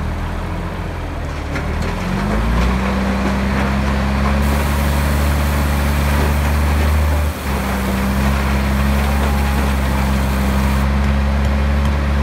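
Diesel engine of a Mack dump truck revving up about two seconds in and holding at high speed while the hydraulic hoist raises the dump bed, with a brief drop about seven seconds in.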